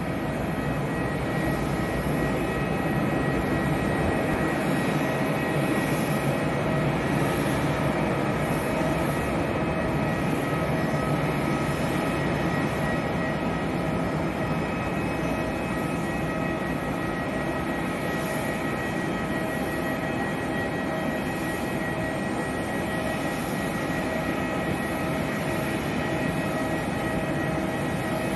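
Airbus A320-family airliner's jet engines running at low taxi thrust as it turns on the runway: a steady whine over a broad, even rumble that barely changes.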